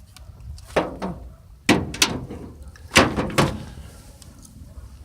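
Shotgun being handled: about five sharp clacks, some close together in pairs, like the action being worked and shells clattering.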